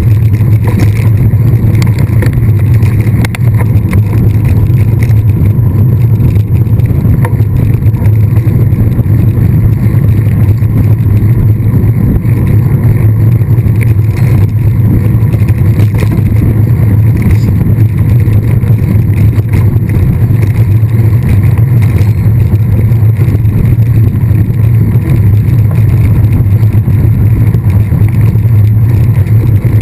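Steady loud rushing and rumbling of wind buffeting the microphone of a camera on a moving mountain bike, with no break through the whole stretch.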